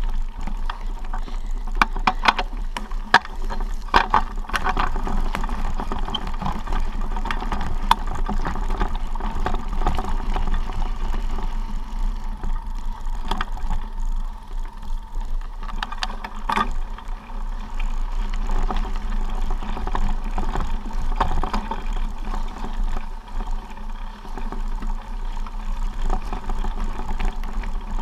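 Mountain bike rolling fast down a dirt forest track: tyres crunching over gravel and dry leaves, with scattered rattles and knocks from the bike over bumps and a steady low rush of air on the microphone.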